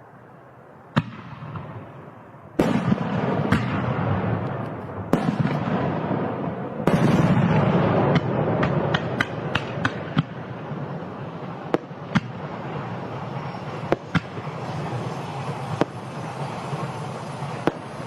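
Fireworks going off: single sharp bangs every couple of seconds, each followed by a long crackling hiss. About eight to ten seconds in comes a quick string of cracks.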